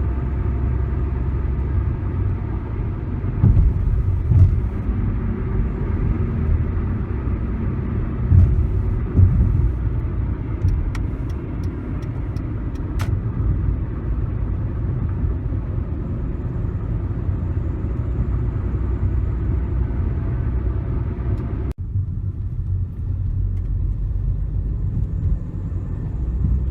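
2013 Hyundai Accent running, a steady engine and car rumble, with a quick run of faint, high, short chirps a little under halfway through: the chirp the owner is trying to pin down. The higher part of the sound drops away suddenly near the end.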